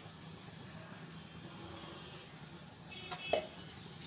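Onion-tomato masala sizzling softly in a kadhai as boiled potatoes, peas and cauliflower are tipped in from a steel bowl. A brief metallic clink comes a little after three seconds in.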